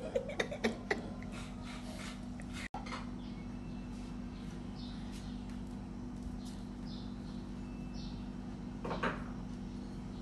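Quiet room with a steady low hum, and faint soft rustles and light taps of small bananas being peeled by hand over a steel tray.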